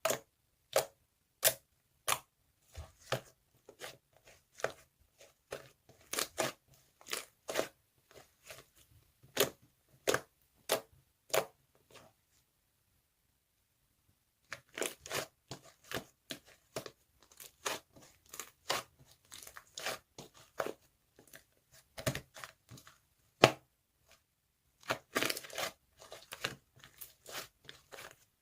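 A doll giving off an unexplained strange sound: short, sharp clicks at irregular intervals, about one or two a second, with a pause of about two seconds near the middle.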